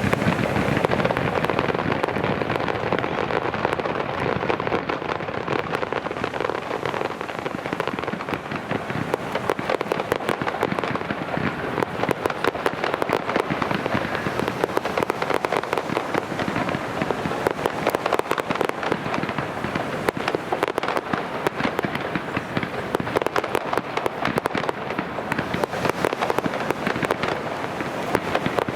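Aerial fireworks crackling densely and continuously: a steady stream of many rapid small pops, with no single big burst standing out.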